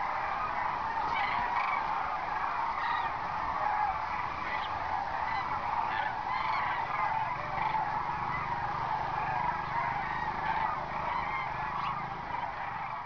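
A large flock of birds calling, many overlapping calls at once in a steady din.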